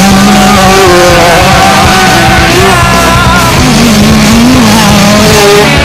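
Loud rock music with a wavering sung or lead melody over a driving beat.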